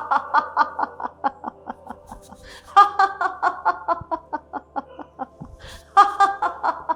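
Loud, deliberate laughter of a laughter-yoga exercise: three long bouts of rapid 'ha-ha-ha' pulses, about five a second. The second bout starts about three seconds in and the third near the end, and each fades away as it runs on.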